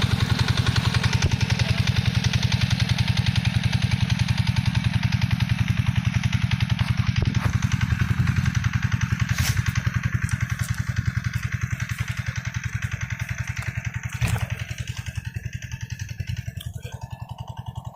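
A small engine running with a steady, fast putter, growing fainter in the second half, with a knock about fourteen seconds in.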